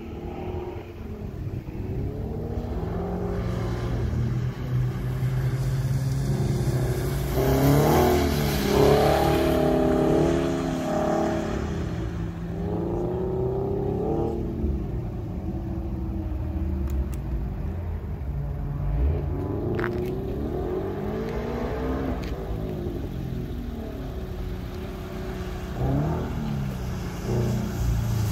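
Subaru BRZ's flat-four engine revving up and down as the car drifts around a wet skid pad, its pitch rising and falling again and again. It is loudest about a third of the way through.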